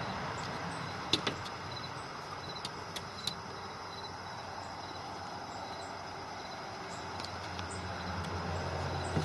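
A few light, sharp clicks from the recoil starter pulley of a Honda push mower being handled and eased back against its wound spring, over a steady background hum.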